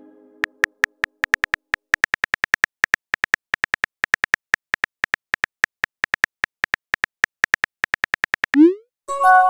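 Rapid, irregular phone-keyboard clicks, about six a second, as a text message is typed. Near the end they stop, and a short rising whoop and a bell-like chime follow as the message is sent.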